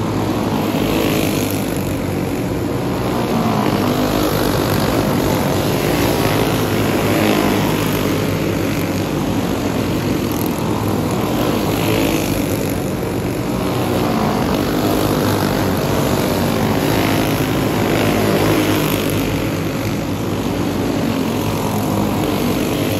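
A pack of racing karts with single-cylinder four-stroke clone engines running hard around a dirt oval. The combined engine note rises and falls as the karts come past and move away.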